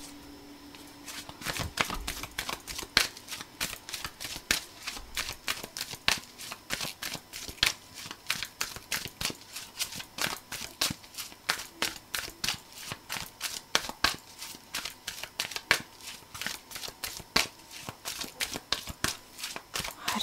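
A deck of tarot cards being shuffled by hand, a steady run of soft card slaps and clicks at about three a second.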